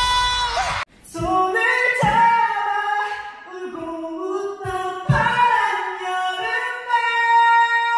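A man singing high notes. A long held high note cuts off just under a second in. Then a line of a Korean ballad is sung into a handheld microphone with no accompaniment, ending on a long held high note.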